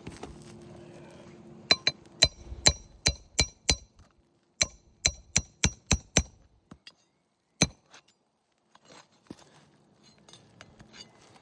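Hammer striking metal in sharp, ringing taps: a quick run of about seven, a run of five, then a single tap.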